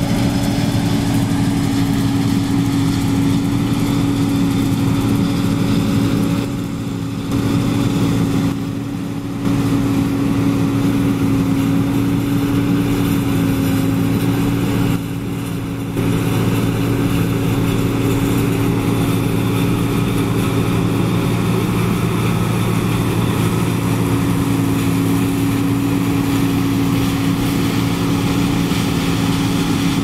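John Deere 9610 Maximizer combine harvesting soybeans: its six-cylinder diesel engine and threshing machinery run under load in a steady drone with a strong low hum. The sound drops off briefly three times, for about a second each.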